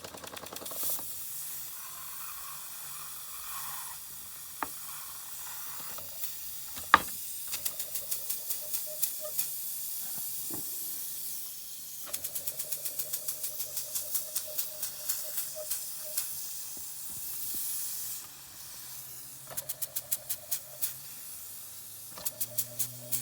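Bing Reverso toy steam engine hissing steam and chuffing its exhaust in quick puffs, about four a second, in spells that stop and start again several times as it is coaxed into running the other way. A sharp click about seven seconds in.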